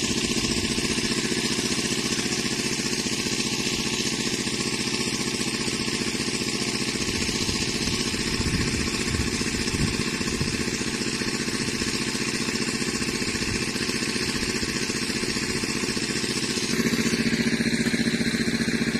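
Engine of a water pump running steadily, a constant mechanical drone that grows a little louder near the end.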